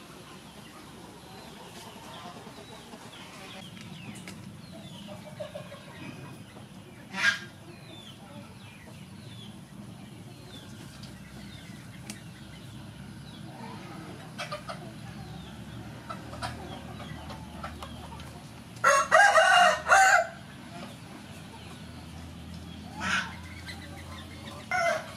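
A rooster crows once, loudly, about two-thirds of the way in, over a low background of faint small-bird chirps; a couple of short, sharp sounds come earlier and later.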